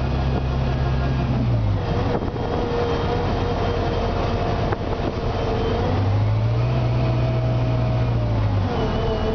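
Detroit Diesel Series 50G natural-gas engine and Voith DIWA 864.3 transmission of a 2003 Orion VII bus, heard from inside the passenger cabin while under way. The low engine drone drops away about two seconds in, pulls strongly again from about six seconds and eases off near the end, with a higher whine stepping in pitch alongside it over steady road noise.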